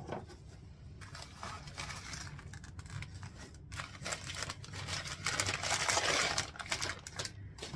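Paper wrapping rustling and crinkling as a small jar is unwrapped by hand, a dense run of crackles that grows loudest a little past halfway.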